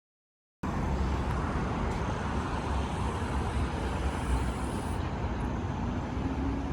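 Outdoor road traffic noise with a steady low rumble, cutting in suddenly about half a second in after dead silence.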